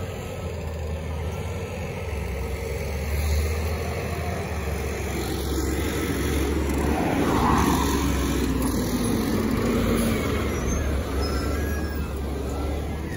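Street traffic and the engine of a natural-gas garbage truck running close by: a steady low rumble that grows louder through the middle.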